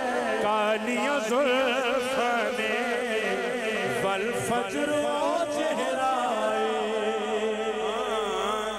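A man singing a naat into a microphone: a long, ornamented melismatic line with wavering pitch and heavy vibrato, over a steady lower hum.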